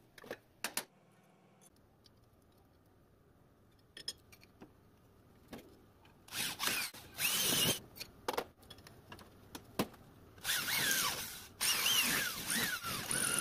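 Electric hand drill boring into a steel plate clamped in a vise, run in several short trigger bursts, its whine rising and dipping as the bit bites. A few sharp clicks come in the first second.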